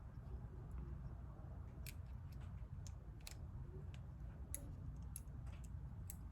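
Faint, irregular small clicks and ticks of carburetor parts being handled and fitted together, the float, its hinge and the inlet needle, starting about two seconds in, over a low steady hum.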